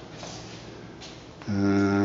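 Low background noise for about a second and a half, then a man's voice begins with a drawn-out, steady sound.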